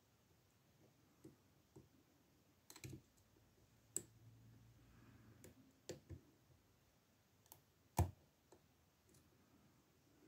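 Faint, irregular metallic clicks and taps of a jackknife blade used as a pick, working the pins of a Master Lock No. 140 padlock. The lock has spool pins and is held in a false set. There is a small cluster of clicks about three seconds in, and the loudest click comes about eight seconds in.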